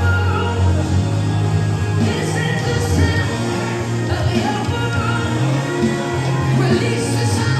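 Worship music with singing: a sustained band arrangement with steady bass under a sung vocal line.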